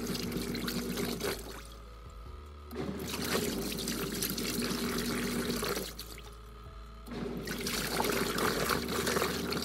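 Mini portable washing machine washing: water and clothes churning in the tub over a steady motor hum. It goes in three runs of about three seconds each, with short quieter pauses between.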